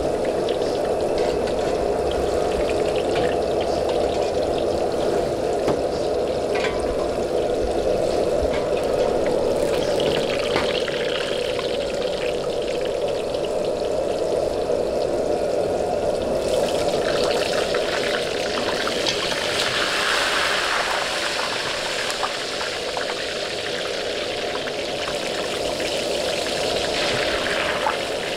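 Battered pork pieces deep-frying in a wok of hot oil: a steady bubbling sizzle over a constant low rush, the sizzle growing louder and brighter about two-thirds of the way through.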